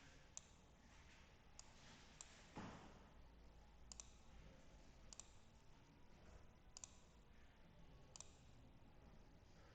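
Faint computer mouse clicks, about seven of them at irregular intervals, some as quick double clicks, over near-silent room tone.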